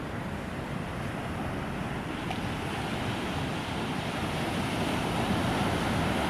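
Sea surf washing onto the beach, a steady rushing that swells gradually louder toward the end.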